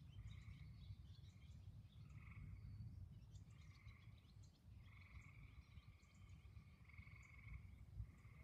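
Faint chorus of frogs: several overlapping trilled calls, each lasting about half a second to a second and a half, repeating one after another over a low rumble.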